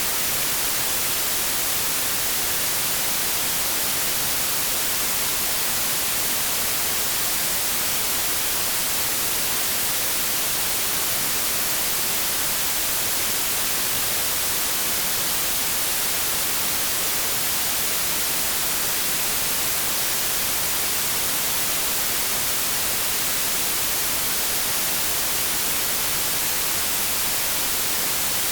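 Steady generated noise of the 'inverse' white noise kind: a constant hiss that gets stronger toward the high end and has little bass. It does not change at all.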